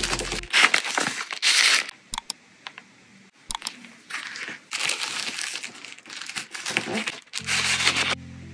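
Pink tissue paper rustling and crinkling as hands fold and handle it, in several irregular bursts with small taps and clicks. Background music stops about half a second in and comes back near the end.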